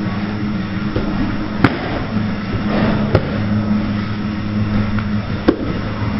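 Steady low hum of a training room, with three sharp, short knocks spread through it.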